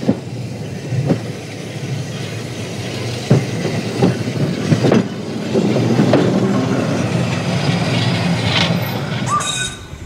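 Double-deck electric tram no. 180 rolling past on its track: a steady rumble of steel wheels on rail with several sharp clicks and knocks, growing louder as it passes close, then falling away near the end.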